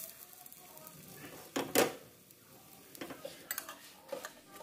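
Kitchen utensils knocking and clinking against pots and dishes. One louder clatter comes just under two seconds in, followed by a few lighter clinks.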